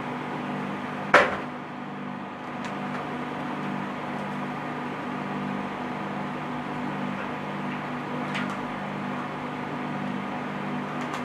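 Steady low hum and hiss, with one sharp knock about a second in and fainter clicks later on.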